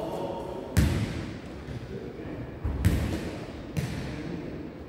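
A jokgu ball struck by players' feet and bouncing on the hard gym floor during a rally: three sharp thuds, the first the loudest, each echoing briefly in the hall.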